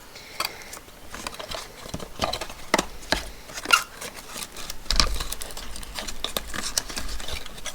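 Irregular clicks, taps and rustles of a small cosmetic container and its packaging being handled, with low bumps from about the middle on.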